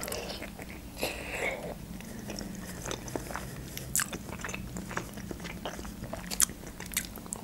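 A person biting into a khinkali (Georgian dumpling) and chewing it, with scattered small mouth clicks.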